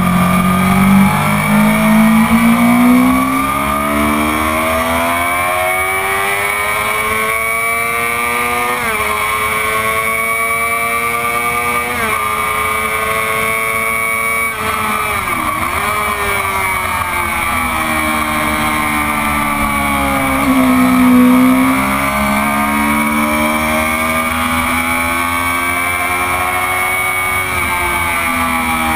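Stock 2004 Honda CBR600RR inline-four engine pulling hard at track speed, revs climbing and dropping sharply at gear changes, with a quick dip and recovery about halfway through and a louder surge about two-thirds of the way in. Wind rushes over the bike-mounted camera throughout.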